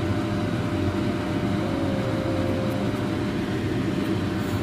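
A steady low machine hum, like a running motor or fan, with a faint brief tone about two seconds in.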